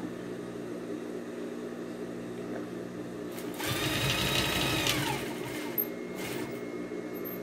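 Electric sewing machine stitching a straight seam through dish-towel cotton in one short run of about a second and a half. Its motor whine rises as it speeds up about halfway in and drops as it stops, over a steady low background hum.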